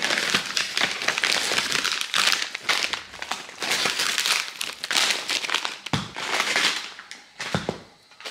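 Plastic packaging crinkling as it is handled, in several bursts with short pauses.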